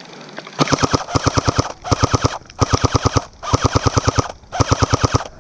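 Airsoft gun firing on full auto in five quick bursts, about a dozen rapid clicks a second, with short pauses between bursts.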